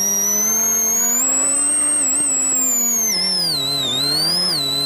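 Suzuki Swift Super1600 rally car's engine heard from inside the cabin, driving hard out of a hairpin. The engine note climbs steadily for about two seconds, then falls away and steadies again near the end as the revs drop.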